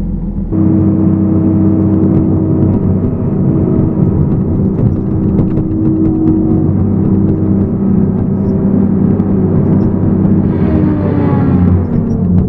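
Tracked forestry machine's engine jumping up to high revs about half a second in and running hard and steady. Near the end a group of tones slides down in pitch.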